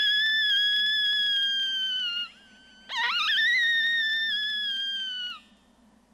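Coyote howler call blown by a hunter to lure coyotes: two long, high howls, each held and then sagging in pitch as it trails off. The second starts about three seconds in, rising in steps before it levels out.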